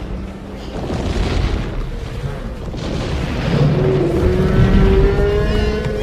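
Layered dinosaur sound effects: a heavy low rumble under breathy hisses about a second in and again about three seconds in, and a long drawn-out call through the second half.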